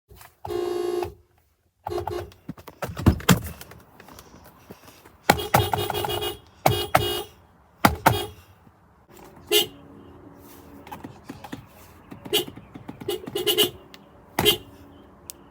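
Subaru car horn sounding in a string of separate honks, the first one steady for about a second and the rest shorter, mixed with sharp clicks and thumps.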